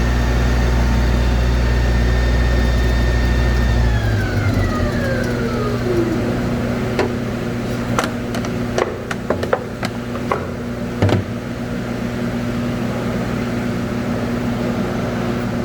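Alimat 160 industrial meat grinder's three-phase electric motor running steadily, then switched off about four seconds in, its whine falling in pitch as it spins down over about two seconds. A run of sharp metallic knocks and clicks follows, over a steady hum that carries on.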